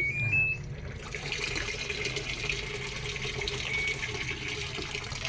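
An Electrolux automatic washing machine's control panel gives three short beeps rising in pitch, then water rushes steadily through the machine with a faint hum as the spin program starts.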